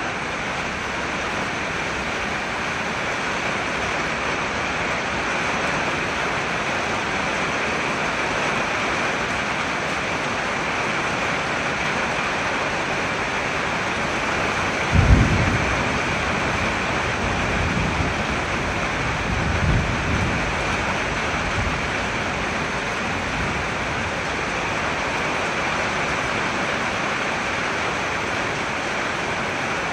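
Heavy rain pouring down as a steady, even hiss. Two brief low rumbles break through about halfway, the first the loudest moment.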